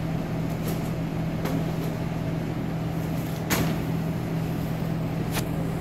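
Steady low mechanical hum of kitchen equipment, with a few light clicks and knocks from hands working at the cutting board; the sharpest knock comes about three and a half seconds in.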